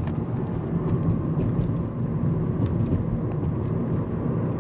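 Steady road and engine noise inside a moving car's cabin, a low even rumble with a few faint ticks.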